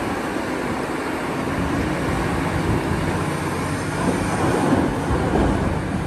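Cat 6015B hydraulic mining excavator working: a steady engine and machinery rumble as it swings a loaded bucket over a dump truck, a little louder about four to five seconds in.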